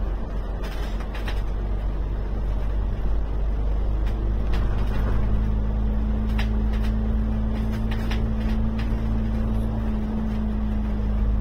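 Alexander Dennis Enviro 500 MMC double-decker bus heard from inside the cabin while cruising at speed: a steady low engine and road rumble, with a steady hum coming in about four seconds in and a few brief rattles from the bodywork.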